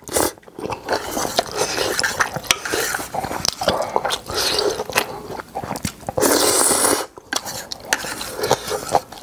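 Close-miked eating of spicy instant ramen with kimchi: chopsticks and spoon clicking against the bowl, with chewing and biting between. About six seconds in comes one loud, hissing slurp of noodles lasting about a second.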